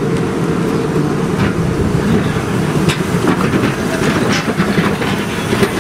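Gomaco-built replica Birney heritage streetcar rolling past close by, its wheels rumbling on the street-running rails, with sharp clicks about once a second as the wheels cross the track joints.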